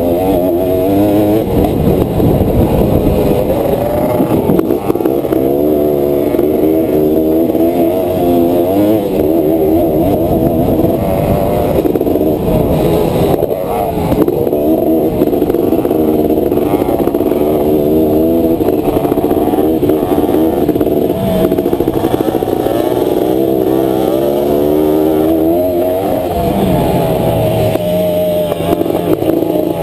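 Honda ATC 250R three-wheeler's two-stroke single-cylinder engine under way on a dirt track, its pitch rising and falling over and over as the throttle is opened and closed.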